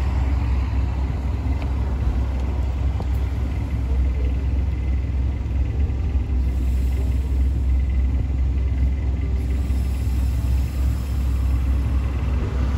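Gas-station air machine inflating a car tyre through a hose chuck held on the valve: a steady low rumble with an even hiss over it.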